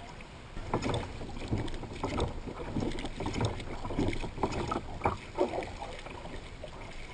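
Irregular splashing and knocking from a small boat on the water, with wind on the microphone.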